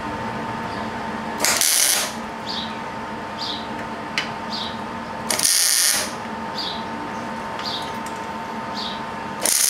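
Wire-feed (MIG) welding gun laying tack welds on steel gussets: three short sizzling bursts of arc, each about half a second, roughly four seconds apart. The last one starts near the end. A steady hum runs underneath.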